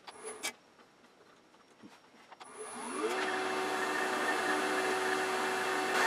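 A few light clicks, then about two and a half seconds in the wood lathe's electric motor starts: its hum rises in pitch for about half a second and settles into a steady run with a faint high whistle.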